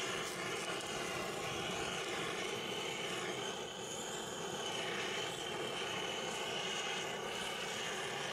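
Handheld butane gas-cartridge torch burning with a steady rushing hiss as it singes a duck carcass.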